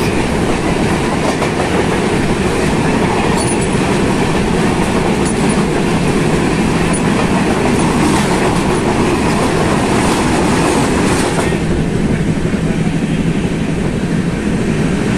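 Loud, steady running noise of a passenger train heard from an open coach door, with the rush of another train's coaches passing close on the next track. About three-quarters of the way through, the passing rush ends and the noise turns duller.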